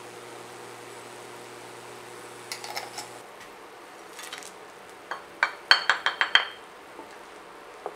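Kitchen utensils and containers clinking against a stainless steel pan as spices are tipped in and stirred: a few light clinks near three seconds, then a quick run of sharper, ringing metallic taps around six seconds. A low steady hum stops about three seconds in.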